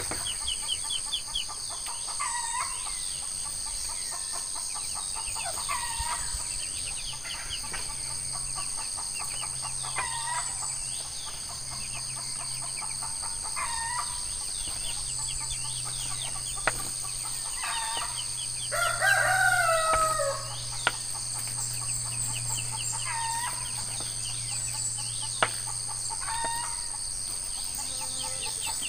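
A rooster crows once, about two-thirds of the way in. Under it runs a steady high-pitched insect chorus, and another bird gives a short call every few seconds. A few sharp knocks stand out.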